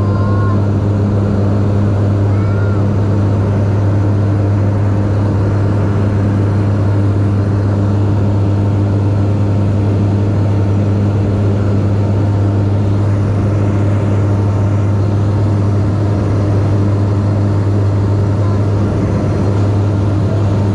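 Piston engine and propeller of a small single-engine plane in cruise flight, a steady unchanging drone heard from inside the cabin.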